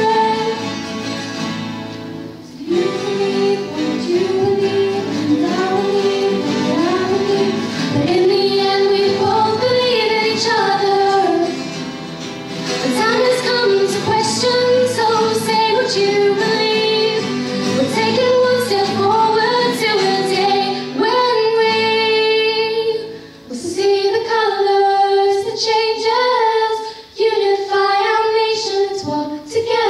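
Teenage girls singing a slow pop ballad into microphones, accompanied by acoustic guitars.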